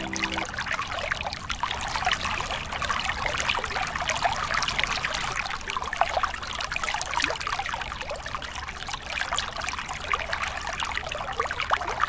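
Water trickling steadily, a dense patter of small splashes. A held music chord cuts off just after the start.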